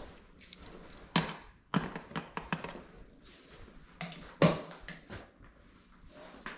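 A handful of sharp knocks and taps in a small room: a quick run of them about a second in, and the loudest single knock about four and a half seconds in.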